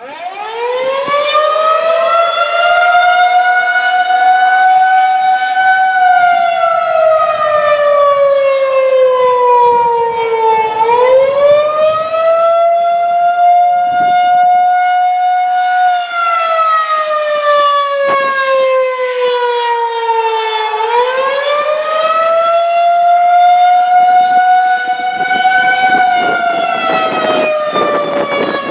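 Federal Signal 2001-130 rotating electromechanical siren starting up and sounding a wail (the attack signal): its tone climbs, holds high for a few seconds, then slides down before climbing again, about every ten seconds.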